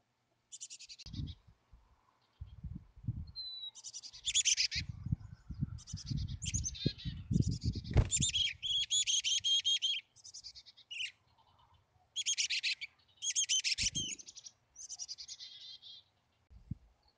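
Black-capped chickadee nestling begging: about a dozen short bursts of rapid, high-pitched calls, loudest and most continuous in the middle. Low scuffling thumps from the bird moving at the wooden nest hole run beneath.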